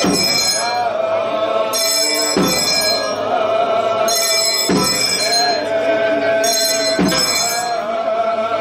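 Aarti chanting in a temple sanctum: voices hold a long, wavering note with small ornaments, over clanging brass hand bells that ring in bouts. A deep strike comes about every two and a half seconds.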